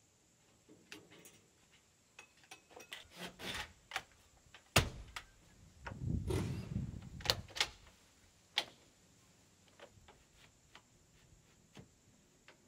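Scattered taps, clicks and knocks of hands-on construction work, with one sharp bang about five seconds in followed by a short rumbling scrape.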